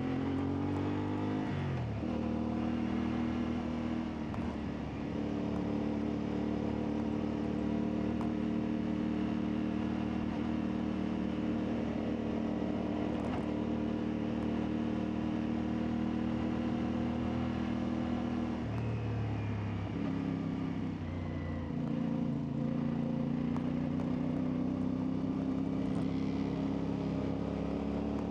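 CfMoto 450MT motorcycle's parallel-twin engine running under way. The revs climb, then drop with a gear change about two seconds in, hold steady for a long stretch, and dip again about two-thirds through before building back up.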